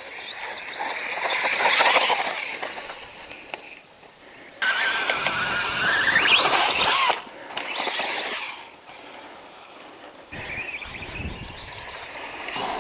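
SKYRC SR5 radio-controlled motorcycle driving, its electric motor whining and rising sharply in pitch as it speeds up, over a steady rush of tyre and drivetrain noise.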